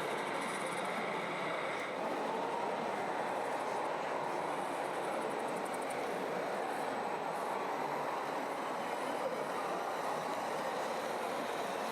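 RC model trucks and construction machines running: a steady mechanical running noise with a faint whine.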